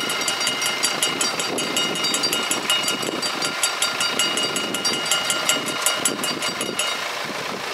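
Dutch AHOB level-crossing warning bells ringing rapidly, several bells striking out of step. The bells ring while the half-barriers rise after the train has passed, and they stop about seven seconds in, once the barriers are up.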